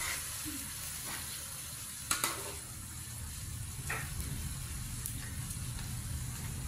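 Stir-fry sizzling in a metal wok over a portable gas stove while a metal spatula stirs it, with two sharp clinks of the spatula against the pan about two and four seconds in.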